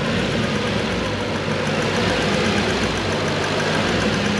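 Toyota 1UZ-FE quad-cam V8 idling steadily with its air intake off, a hiss running over the engine note. The sound is 'a bit more nasty', a noise the owner hopes fitting the intake will quieten, putting it down to the idle stepper motor.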